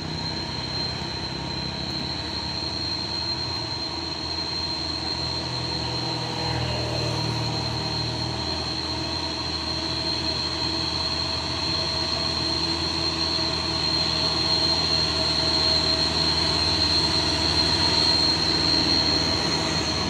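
Diesel engine of a loaded Mitsubishi Fuso Fighter cargo truck labouring up a hill, growing steadily louder as it approaches. A steady high whine runs underneath.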